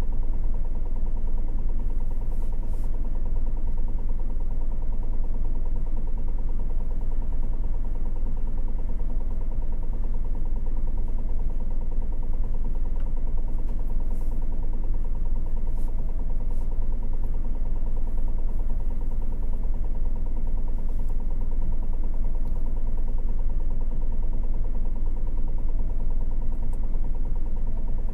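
Inside a city bus: the diesel engine and drivetrain running with a steady low rumble. A faint tone pulses on and off about once every second and a half, with a few light ticks.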